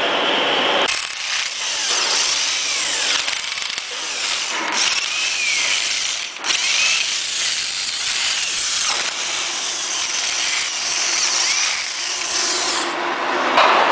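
Handheld power tool with a socket spinning nuts onto the bolts of an extruder's spindle bearing housing flange; its motor whine slides up and down in pitch as the nuts run down, with a brief break about six seconds in.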